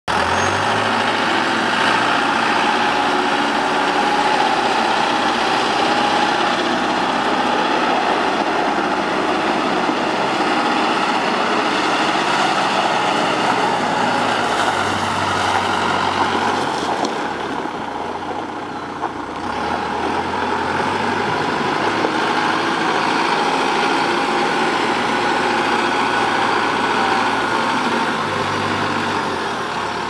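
Terex TLB840 backhoe loader's diesel engine running steadily as the machine drives around, dropping in level briefly a little past halfway as it moves farther off.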